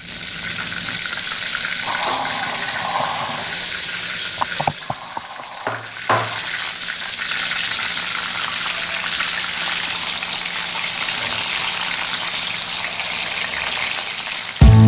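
Hot oil sizzling steadily in a wide frying pan, with marinated chicken pieces frying in it by the end. A few sharp clicks and knocks about five to six seconds in.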